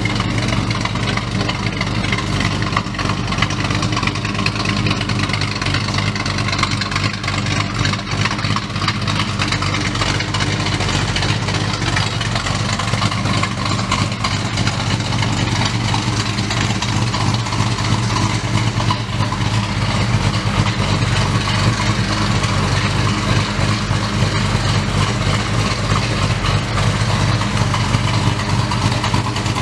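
1960 Studebaker Lark III's engine idling steadily, a constant low hum.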